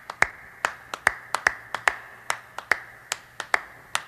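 Finger snaps keeping a steady beat, about two to three a second, with softer snaps in between.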